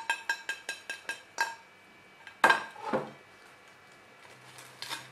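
Kitchen knife sawing through the crisp, crunchy breadcrumb crust of a fried paneer finger: a fast run of small crunching clicks for about a second and a half, then a few louder knocks of the blade.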